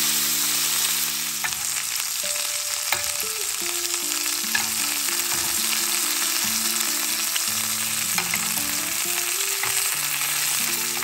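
Butter sizzling in a hot frying pan around a seared filet mignon and a lobster tail, a steady frying hiss with scattered sharp spits and pops. The melted butter is being spooned over the lobster as it cooks.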